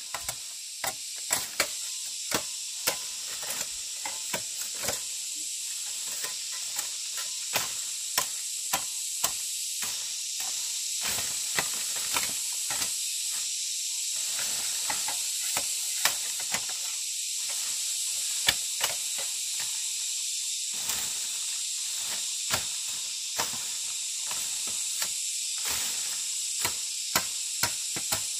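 Steady high-pitched drone of forest insects, with sharp knocks and taps every half second to a second.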